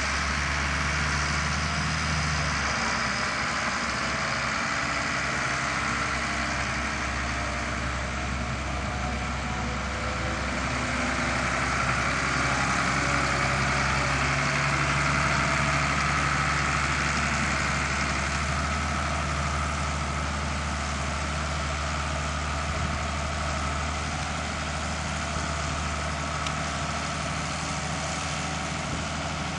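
International Harvester farm tractor with a front-end loader, its engine running steadily at a low, even pitch as it works, a little louder in the middle.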